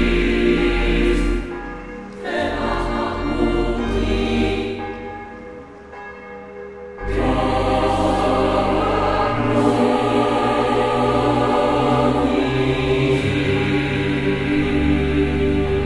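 Choral music on the soundtrack with church bells ringing mixed in. It fades down about five seconds in and swells back strongly about two seconds later.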